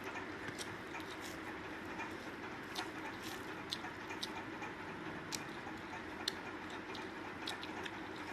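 Eating sounds of a meal eaten by hand: irregular small clicks and smacks of chewing and fingers working rice on a plate, over a steady background hum.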